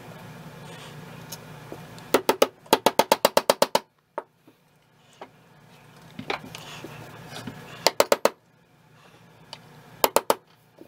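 Several quick runs of sharp clicks or taps, the longest about ten in a second, over a steady low hum.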